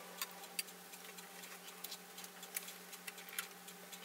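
Faint, scattered light clicks and handling noise from hands arranging fabric under a sewing machine's presser foot, a few irregular ticks a second, over a low steady hum. The machine is not stitching.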